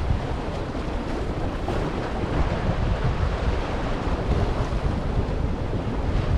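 Small sea waves washing and splashing against rocks. Wind buffets the microphone in a steady low rumble.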